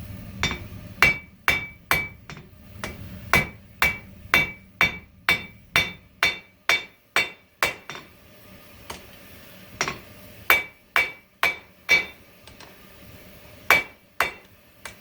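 Hand hammer striking hot coil-spring (5160) steel on an anvil, squaring up the end of the bar. The blows come about two a second, each with a ringing tone, and break off briefly about eight seconds in and again about twelve seconds in.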